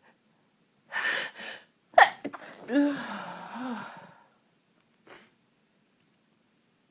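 A woman with a cold sneezes once. Two sharp in-breaths come first, then a loud, sudden sneeze about two seconds in, trailing off into a voiced sound whose pitch rises and falls. A short breath follows about a second later.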